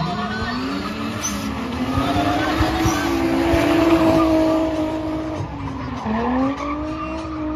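A drift car's engine revving hard and held high while its rear tyres skid and squeal in a sustained slide. The revs waver, drop sharply about six seconds in, then climb again.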